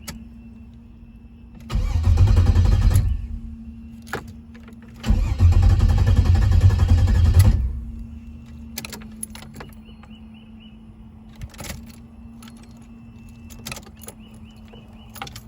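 Car engine cranking on the starter twice, a short try and then a longer one of about two and a half seconds, without catching: it turns over but won't fire, though fuel is reaching the rails. A steady hum from the hardwired electric fuel pump runs underneath, with a few light clicks near the end.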